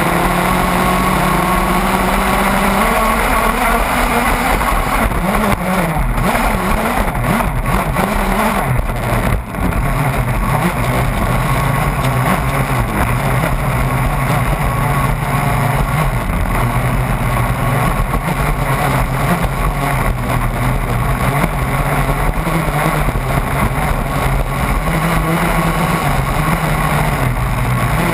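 Radio-controlled racing catamaran's motor running at speed, heard from on board over the rush of water and wind. Its pitch drops and wavers between about 3 and 10 seconds in, with a brief dip in loudness, then holds steady.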